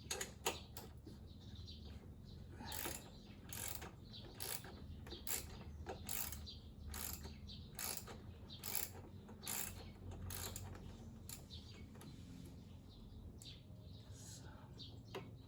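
Socket ratchet wrench with a 10 mm socket undoing an M6 screw, its pawl clicking in short bursts about once a second as the handle is swung back and forth.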